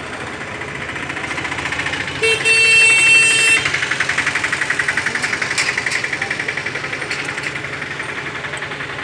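Street traffic: a vehicle engine running with a fast, even pulsing beat, and a vehicle horn sounding once, for about a second and a half, a little after two seconds in. The horn is the loudest sound.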